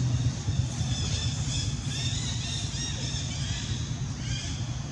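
Outdoor ambience: a steady low motor hum with a series of short, high chirping calls, mostly in the first half and again near the end.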